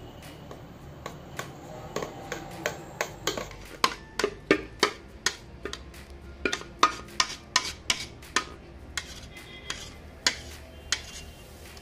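A metal spatula clinking and scraping against a steel pan as thick ghee Mysore pak batter is pushed out into a plate. The sound is a run of irregular sharp clicks, a few a second, busiest in the middle.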